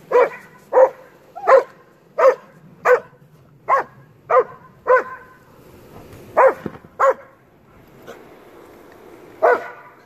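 A yellow Labrador-Husky mix barking: a quick run of eight sharp barks about two-thirds of a second apart, then two more after a short pause, and a single bark near the end.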